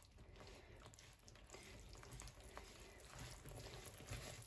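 Faint wet stirring of flour into runny cake batter with a hand whisk in a plastic bowl, with a few light clicks.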